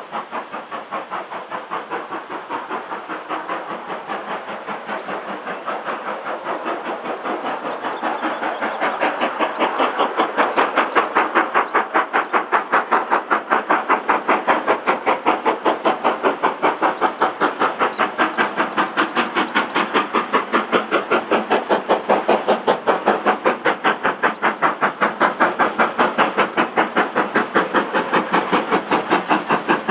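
Steam locomotive hauling coaches, its exhaust beating in a fast, even rhythm. It grows louder as it approaches, reaching full strength about ten seconds in. Faint bird chirps sound above it a few times.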